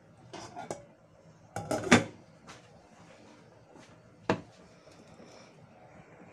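A glass saucepan lid with a metal rim being handled and set onto a stainless steel pot: a few light knocks, then a loud clatter about two seconds in, and one more sharp clink a little after four seconds.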